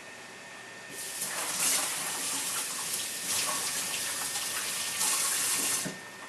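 Water running from a tap to rinse a kitchen knife and whetstone clean of grit and steel slurry after sharpening. It comes on about a second in, changes as the flow hits the items, and stops just before the end.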